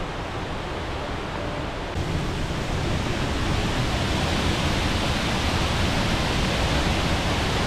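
Steady rush of a waterfall, louder from about two seconds in.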